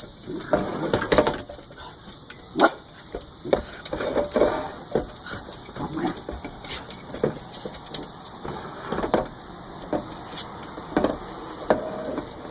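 A puppy giving short, irregular barks and yips in play, mixed with sharp knocks and clicks, the loudest about two and a half seconds in.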